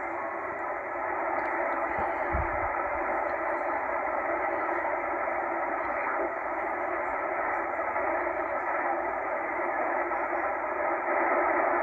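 Steady hiss of band noise from a Tecsun H-501X shortwave receiver in upper-sideband mode, heard through its narrow SSB filter as it is tuned through empty utility frequencies around 13.1–13.25 MHz. A low bump comes about two seconds in.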